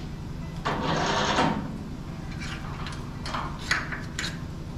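Steel tooling handled on a sleeve-boring machine's fixture: a scraping metal slide about a second in, then a few short clicks and knocks, over a steady low hum.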